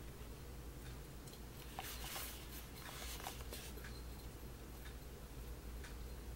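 A few faint scrapes and light taps of fingers on a small cardboard perfume box as it is turned over, bunched in the middle, over a steady low hum.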